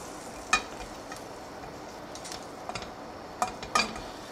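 A black slotted plastic spatula knocking and scraping against a stainless steel frying pan while stirring herbs, a handful of irregular clicks over a faint sizzle of the nearly dry pan.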